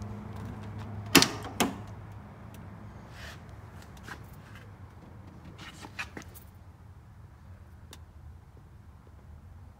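A car door being opened: two sharp clacks of the handle and latch, about half a second apart, then a few fainter clicks, over a steady low hum.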